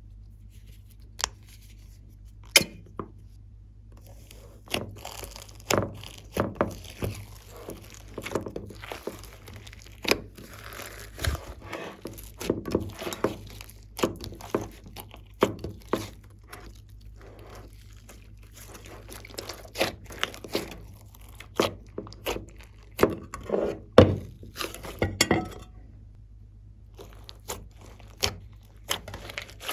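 Glossy slime being kneaded and pressed by hand: irregular sticky clicks, pops and crackly squishes, some in quick clusters. A steady low hum runs underneath.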